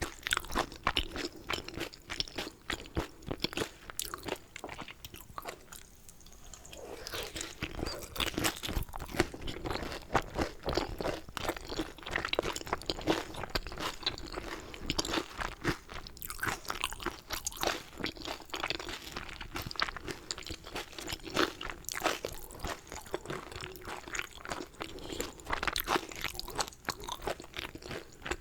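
A person chewing food close to a sensitive microphone, a steady stream of small quick wet clicks and smacks from the mouth, with a brief quieter lull about six seconds in.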